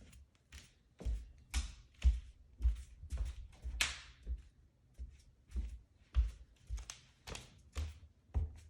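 Footsteps on a newly installed Shaw floor: each step lands as a low thud, and several bring a crackly crunch from the floor underfoot. The crunching is a persistent installation fault that will not go away.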